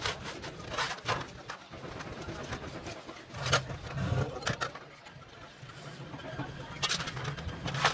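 Scattered clinks and scrapes of a metal turbocharger part being handled and picked clean in a metal basin of oil, with pigeons cooing in the background.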